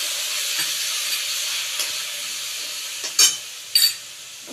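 Ground spices mixed in water sizzling in the hot oil of a kadai, a steady hiss that slowly dies down. A metal spatula clinks against the pan twice near the end.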